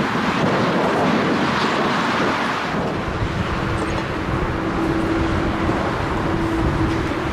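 Jet airliner engines, a steady roar with wind buffeting the microphone. About three seconds in, the sound changes to the steadier running of a Boeing 747's four jet engines as it rolls along the runway, with a low steady hum.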